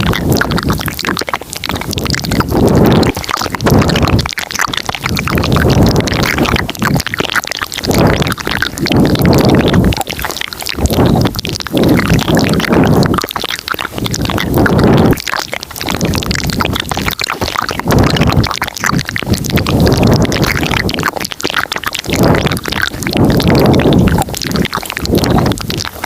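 Layered ASMR mouth sounds recorded very close to the microphone, coming in repeated surges every second or two.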